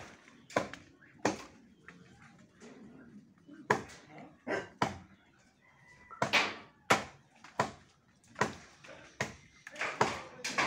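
Repeated chopping strikes into a tree branch being cut down, about a dozen sharp knocks at an uneven pace.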